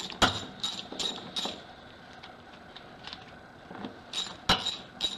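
Ratchet wrench clicking in quick, regular strokes, about three clicks a second, as a 10 mm bolt is backed out. The clicking pauses for about two seconds in the middle, and a sharper knock comes about four and a half seconds in.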